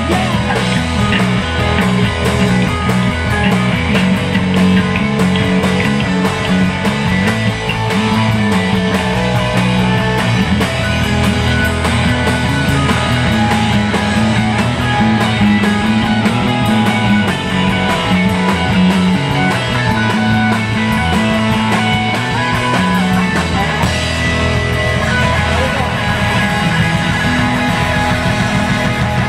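Live rock band playing loud and without a break: electric guitars, electric bass and a drum kit.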